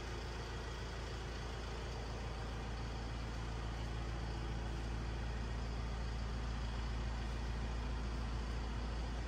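Diesel engine of an Isuzu Elf Giga microbus idling: a steady low hum.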